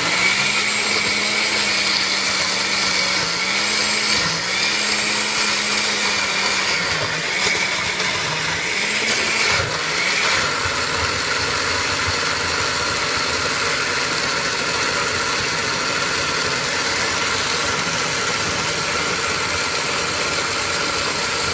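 Countertop blender with a glass jar running continuously, pureeing rehydrated guajillo chiles with garlic, sauces and olive oil. Its motor pitch sags and recovers several times in the first ten seconds while whole chile pieces are still being chopped, then holds steady as the mixture turns smooth, and it stops near the end.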